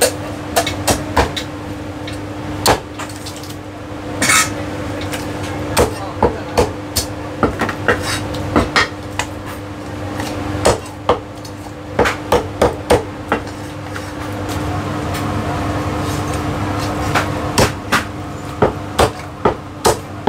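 Heavy Chinese cleaver chopping a bone-in boiled chicken on a thick round wooden chopping block: a long series of sharp knocks at an uneven pace, at times several strokes in quick succession.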